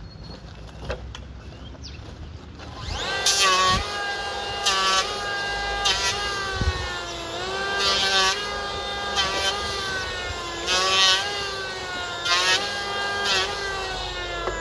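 Small engine running at high revs, its pitch dipping and recovering again and again as it takes load, with sharp rasping bursts every second or so. It starts up about three seconds in.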